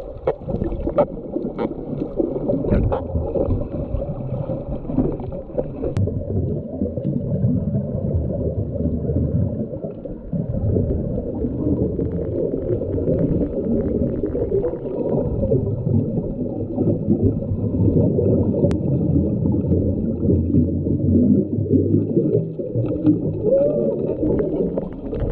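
Muffled underwater noise through a camera's waterproof housing: a steady low rumble and gurgling of water and bubbles, with faint scattered clicks above it.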